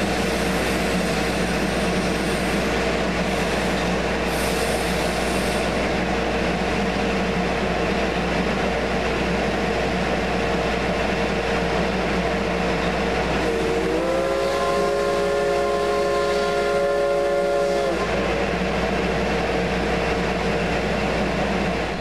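Train running with a steady rumble and a constant tone. About thirteen seconds in, its horn sounds a chord of several notes once, held for about four seconds, bending up slightly as it starts.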